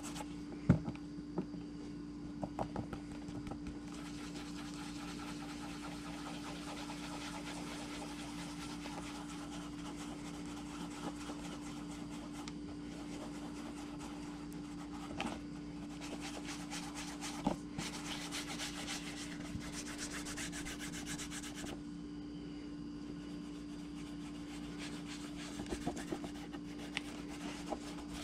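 Rubbing on a leather knife sheath: a continuous scrubbing hiss with a few light knocks, over a steady low hum.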